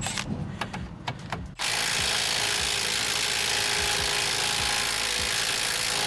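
A Milwaukee Fuel cordless impact wrench hammers steadily, starting about a second and a half in, breaking loose a tight caliper bracket bolt on a front brake. A few light clicks of the socket being fitted onto the bolt come first.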